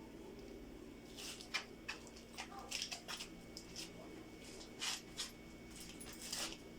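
A steady low hum with a string of short clicks and scrapes, like parts or tools being handled.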